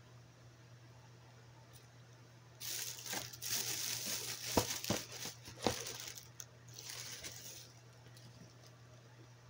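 Plastic packaging crinkling and rustling, with several sharp clicks, for about five seconds starting a couple of seconds in.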